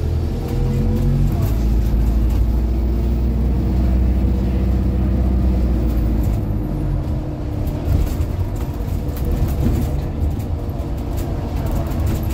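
Cabin sound of an Alexander Dennis Enviro 400ER double-decker bus driving: a heavy low rumble that eases after about six seconds, with a faint whine drifting slightly in pitch, and interior rattles and clicks in the second half.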